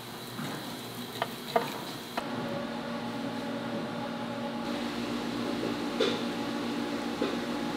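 A steady machine hum with a few short, light clicks and clinks scattered through it.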